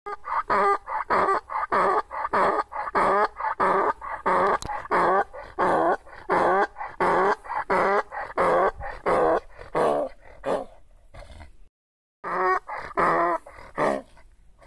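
Donkey braying in a long, shrill string of rapid hee-haw pulses, about two a second, breaking off briefly near the end and starting again. The uploader puts the shrill voice down to the donkey being thin and poorly kept.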